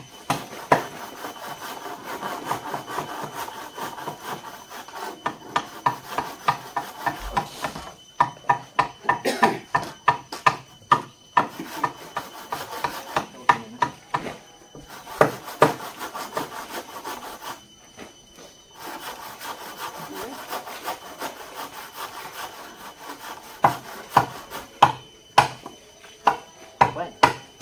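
Hand saw cutting wood in bouts of rhythmic strokes, about three a second, with short pauses between bouts.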